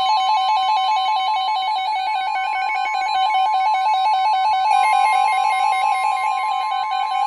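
NOAA Weather Radio warning alarm tone: a loud, steady, high single tone, with a second, rapidly warbling alert tone sounding over it. It signals that a new warning broadcast is about to be read.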